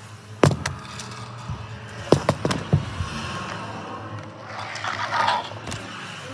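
Handling noise: a sharp knock about half a second in, then a quick run of four clacks around two to three seconds, and a short rustling scrape about five seconds in.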